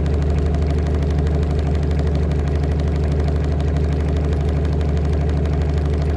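Vehicle engine idling, a steady low drone.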